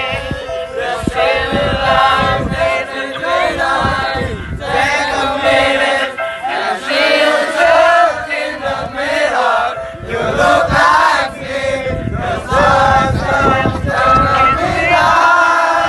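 Music with several voices singing together over a beat.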